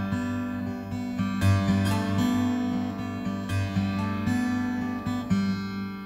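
Background music: acoustic guitar strumming and picking chords.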